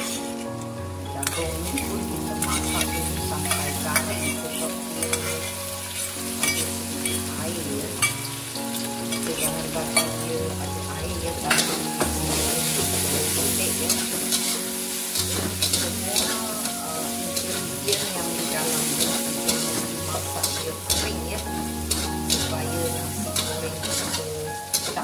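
Diced Chinese sausage and corn kernels frying with a steady sizzle in a wok, while a metal spatula repeatedly scrapes and clinks against the pan as the food is stirred.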